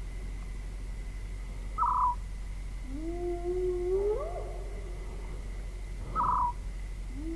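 Spotted hyena whooping at night: two long low calls, each rising, holding, then swooping up at the end, a few seconds apart. Two short, sharp, higher-pitched calls from another animal are the loudest sounds, and a steady low hum runs underneath.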